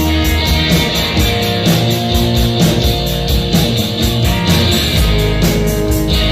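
Live rock band playing: electric guitars, bass and drums with a steady beat.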